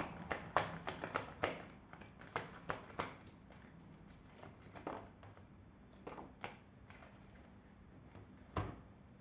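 Playing-card-sized oracle cards being handled and laid down on a table: a quick run of light taps and flicks in the first three seconds, then scattered ones, with a duller knock near the end.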